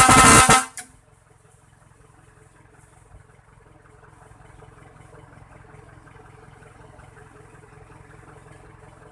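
Ban Pong horn sounding a loud, wavering blast that cuts off sharply under a second in, followed by a faint steady low hum.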